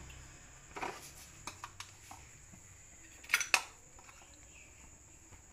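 Metal spatula clicking against a frying pan: a few light clicks, then two sharper taps close together a little past halfway.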